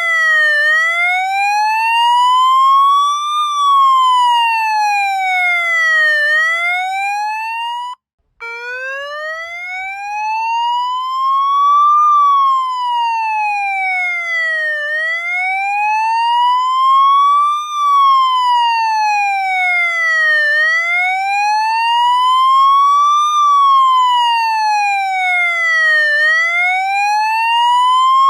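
Police siren sounding a slow wail: one tone rising and falling, a full cycle about every six seconds. About eight seconds in it cuts out for a moment and starts again from a lower pitch.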